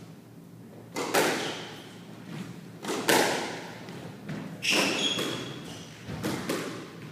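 A squash rally: sharp smacks of rackets hitting the ball and the ball striking the court walls, one every second or two, each echoing in the court.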